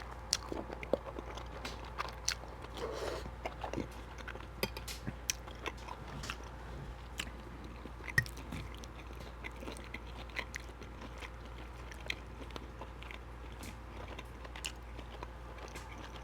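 Close-miked chewing and wet mouth sounds of a person eating pasta, with scattered irregular clicks and smacks.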